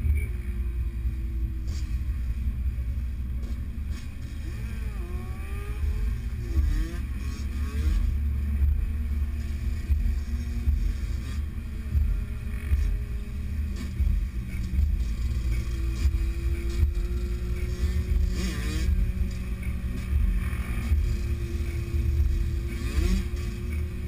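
Several motorcycles riding in a group, heard from one of the moving bikes: a steady, heavy low rumble, with engine notes rising and falling in pitch as the bikes rev, most clearly about five seconds in and near the end.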